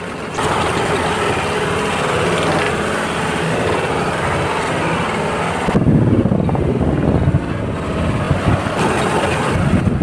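A paving machine's diesel engine running steadily while its augers spread a soil-and-stone mix. From about six seconds in, wind buffets the microphone over the engine.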